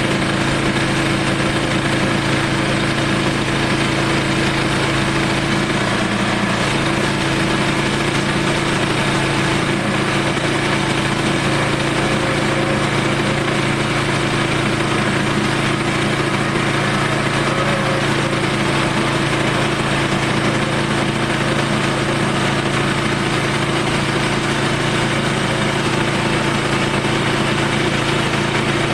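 Portable sawmill's engine running steadily, holding an even note as the mill cuts through a southern rata log.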